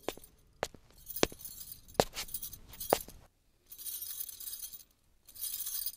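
Light clinking and jingling, glass or metal: four sharp clinks about a second apart, with softer high jingling between them.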